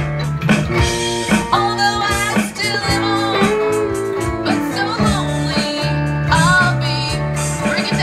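A band playing a song, guitar to the fore, over held bass notes and a steady drum beat.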